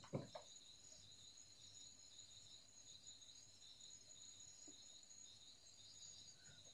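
Faint, steady chirring of insects, a high pulsing trill, with a few soft knocks right at the start.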